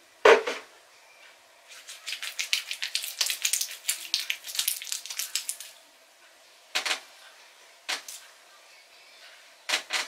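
Hands rubbing and working castor-oil-soaked hair close to the microphone: a quick run of sticky, crackly rubbing strokes for about four seconds, then a few single rustles. A sharp knock sounds just after the start.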